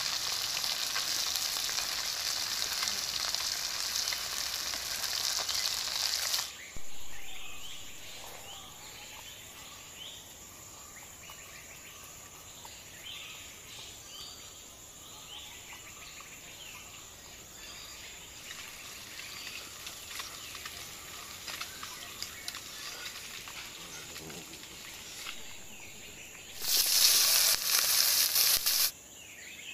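Pieces of vola fish frying in hot oil in an iron wok: a loud, steady sizzle that stops about six seconds in. Between the two sizzles there is only a faint background with light ticks. The sizzle returns loudly near the end for about two seconds.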